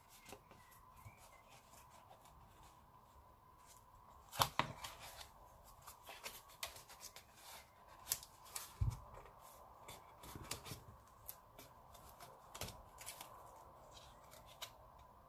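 Cardstock and tape being handled and pressed into place by hand: quiet paper rustles and scattered small taps and clicks, the sharpest about four and a half seconds in, with a dull thump near nine seconds. A faint steady tone sits underneath.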